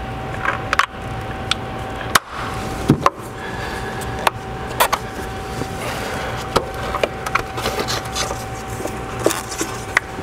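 Scattered clicks, taps and rubbing as a rubber PCV hose and its spring clamp are worked loose by hand among the plastic parts of an engine bay, over a steady background hum.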